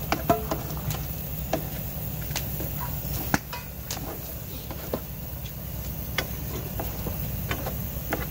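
A cooking utensil clicking and scraping in a pan as leftover rice is stirred and reheated, with scattered short knocks over a steady low hum.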